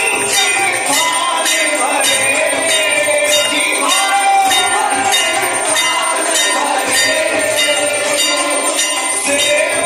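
Temple bells ringing in a steady beat of about two strokes a second during aarti worship, with a wavering devotional melody over them.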